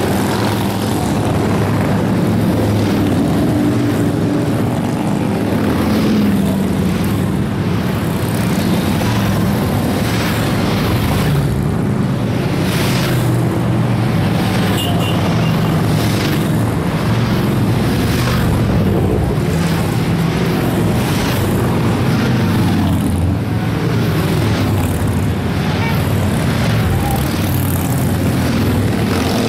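A steady procession of large cruiser and touring motorcycles riding past one after another, their engines running in a continuous loud rumble, with each bike's note rising and falling as it goes by.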